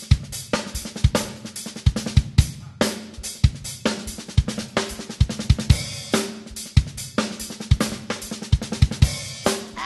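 Background music with a steady drum-kit beat: bass drum, snare and cymbals.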